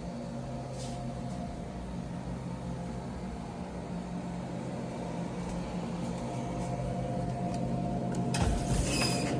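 Steady machine hum with several even tones, like an indoor appliance or air-conditioning unit running. Near the end a rushing hiss comes in on top of it.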